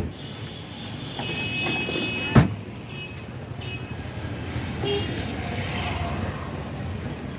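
A car's boot lid is shut with one loud slam about two and a half seconds in, over a steady low hum of background traffic.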